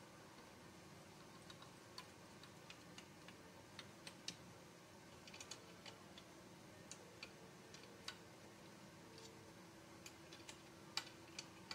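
Faint, irregular light clicks and taps of a small hand tool working on a chainsaw's metal fittings, a handful spread out with a small cluster about halfway through and a few sharper ones near the end.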